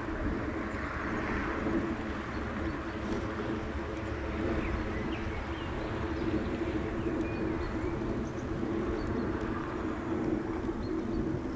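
Steady outdoor rumble with a few short bird chirps scattered through it.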